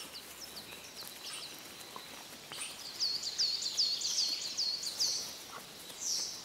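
Forest ambience with a small songbird singing: a quick run of about eight high, down-slurred notes about three seconds in, with a few single high notes before it.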